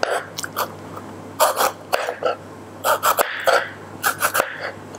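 Kitchen knife slicing a raw bell pepper into thin strips on a plastic cutting board: a run of short, irregular crisp cuts and taps of the blade on the board.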